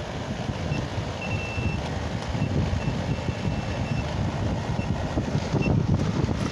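Klein Tools circuit breaker finder receiver giving short, high-pitched beeps at an irregular pace, a few held for about half a second, as it picks up the transmitter's signal at the outlet. A steady low rumble runs underneath.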